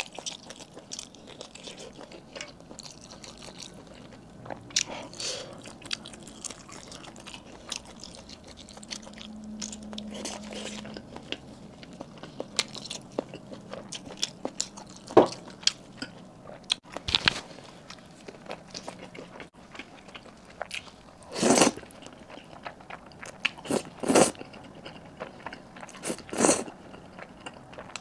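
Close-miked mouth sounds of eating a grilled sausage: biting and wet chewing, with many small mouth clicks. In the last few seconds there are several louder bursts as noodles are slurped.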